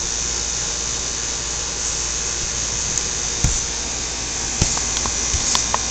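Steady mechanical whirring hum of an outdoor air-conditioning unit running, with several short thumps and clicks in the second half as a vinyl inflatable dolphin is grabbed and knocked about.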